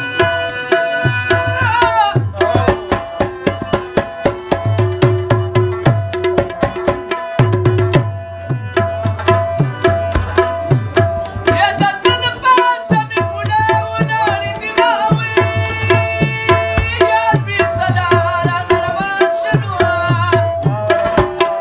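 Live Pashto folk music: tabla strokes in a steady rhythm under held harmonium notes and the plucked melody of a rabab. The melody grows busier about halfway through.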